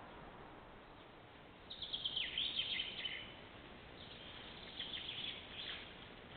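A small bird chirping in two quick bursts of high, rapid notes, the first louder, over the steady hiss of a camera-trap microphone.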